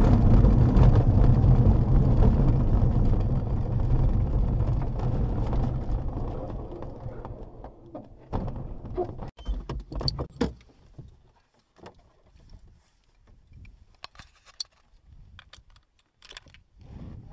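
Glider's main wheel rumbling over the grass runway on the landing roll, fading away over the first several seconds as the glider slows to a stop. After that come scattered clicks and clinks of cockpit fittings, including the harness buckle being handled near the end.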